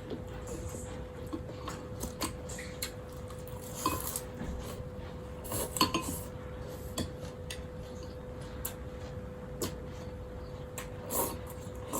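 Eating utensils clinking and knocking against a bowl of noodle soup, in scattered irregular strikes. A faint steady hum runs underneath.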